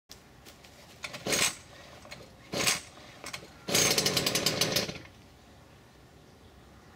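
Stihl FS 240 C-E brushcutter's two-stroke engine being pull-started. There are two short pulls of the starter cord, about a second in and about two and a half seconds in. At a third pull the engine fires and runs unevenly for about a second, then stops.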